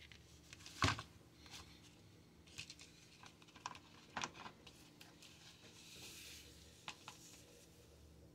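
Plastic mower discharge chute handled on a cardboard-covered bench: a few light knocks and clicks, the loudest about a second in and another a little after four seconds, over a faint steady hum.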